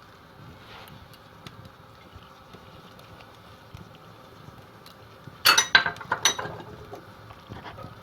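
A spoon knocking against a cooking pot three or four times, with a short ringing, about five and a half seconds in, over a faint steady hiss and a few small clicks.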